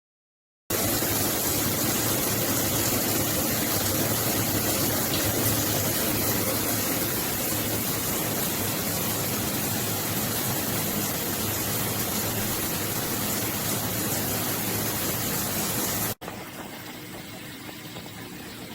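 Shower head spraying water in a steady hiss that starts suddenly just under a second in. About 16 s in it cuts abruptly to a quieter spray.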